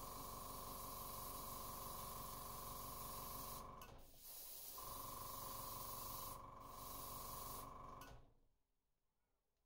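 Airbrush spraying a very light coat of dark blue acrylic paint: a steady air hiss with a steady tone underneath, breaking off briefly a few times as the trigger eases, and stopping about eight seconds in.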